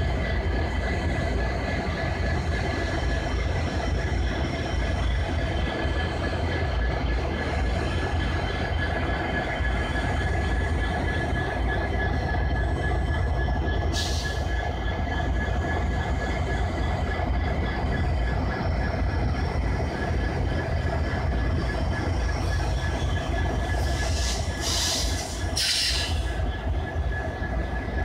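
Indian Railways diesel locomotive running at the platform: a steady, loud engine rumble with a steady whine over it. Short hissing bursts come once about halfway and twice near the end.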